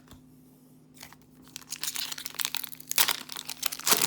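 A trading-card booster pack's foil wrapper crinkling and being torn open, starting about a second and a half in, with the loudest crackles near the end.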